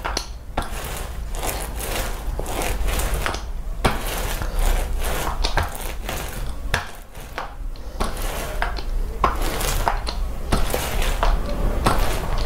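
Paint roller working thick Tuff Tex Eco textured cabinet coating over a board: a sticky crackling with many irregular clicks and smacks, over a steady low hum.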